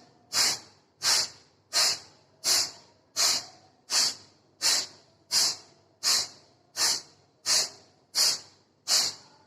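Forceful single-nostril exhalations of kapalbhati breathing: a man blowing air sharply out through one nostril with the other held shut. About fourteen short hissing puffs come at an even pace, roughly three every two seconds.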